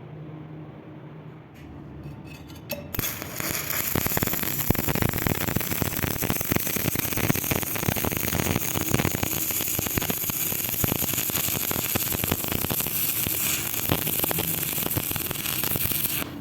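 Electric arc welding on thin square tube: after a few short sputters as the arc is struck, a steady, dense crackling hiss runs on for about thirteen seconds and cuts off suddenly near the end as the arc is broken.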